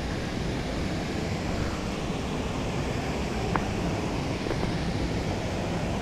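Waterfall rushing steadily, a continuous even roar of falling water, with a faint short tick about three and a half seconds in.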